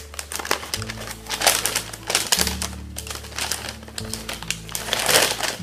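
Wrapping paper crinkling in irregular crackles as a small gift package is unwrapped by hand, over background music with held bass notes.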